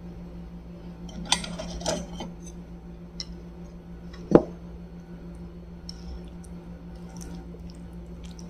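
Chopsticks clicking and tapping against a plate as food is picked up: a few separate light clinks, the loudest about four seconds in.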